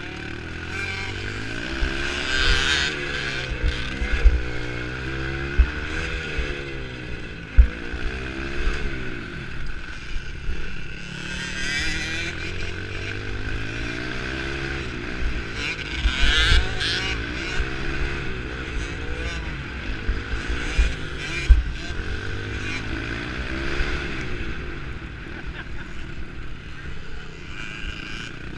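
A 65cc two-stroke motocross bike's engine, heard up close, revving up and falling back again and again every couple of seconds through the race. Occasional sharp thumps and knocks cut through the engine note.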